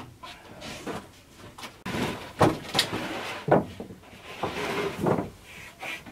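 Large plywood sheet being tipped down and set flat onto wooden supports: several hollow wooden knocks and thuds with some scraping, the loudest a little over two seconds in.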